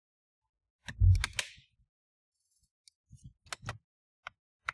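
Plastic palmrest cover of an HP 14 laptop being pressed down by hand onto the chassis: a thump with a quick cluster of plastic clicks about a second in, then a few separate sharp snaps near the end as its clips catch.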